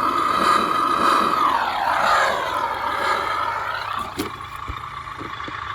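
Electric motor and drivetrain of an Axial SCX10 RC crawler with a broken axle, whining at a steady high pitch, then dropping in pitch about two seconds in and fading. A sharp click comes about four seconds in.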